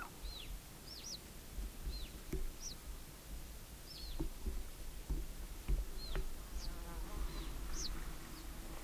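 Puma cubs calling with short, high-pitched chirping whistles that rise and fall, about one a second, over a steady low rumble.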